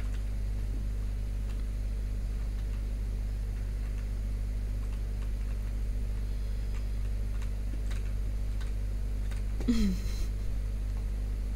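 Steady low electrical hum with faint scattered clicks, and a short voice sound falling in pitch about ten seconds in.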